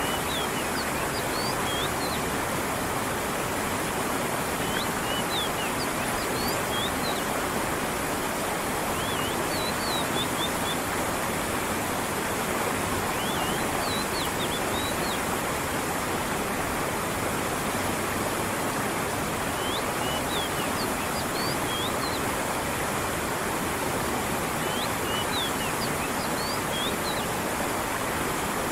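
A stream of running, falling water rushing steadily, with small bursts of short, high bird chirps repeating every few seconds.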